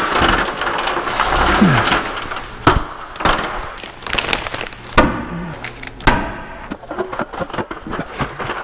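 Plastic sheeting rustling and crinkling as it is unfolded and pulled up, with several sharp staple-gun clacks that ring briefly in a large metal-walled shop.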